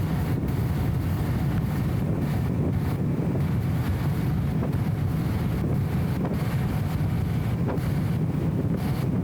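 Steady, muffled low rumble of a BMW E34 M5 Touring cruising, its straight-six engine and road noise flattened by the camera's anti-wind audio filter.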